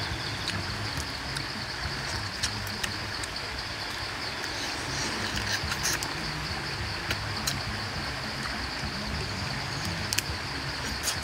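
Steady forest insect buzz over a low background rumble, with scattered small sharp clicks and snaps of crab shell being picked apart by hand, a few of them close together near the end.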